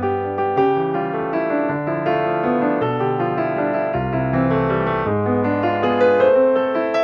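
Background piano music: a gentle melody of many notes over held bass notes that change about once a second.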